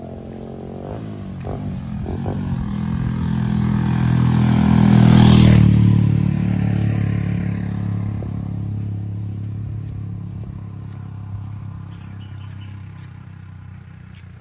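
A motor vehicle passing by. Its engine grows louder, peaks with a brief rush about five seconds in, then fades away slowly.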